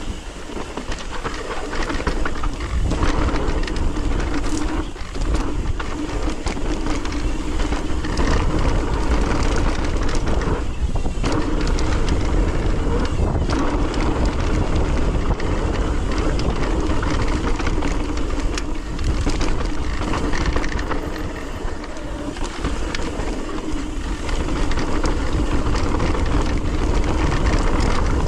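Mountain bike riding fast down a dirt singletrack: tyres rumbling and the bike rattling over the rough trail, with wind buffeting the camera's microphone.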